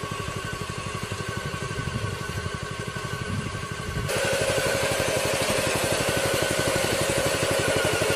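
Engine running steadily with a fast, even throb. About four seconds in it becomes louder and fuller, with the running of a tractor-drawn lettuce harvester and its conveyor.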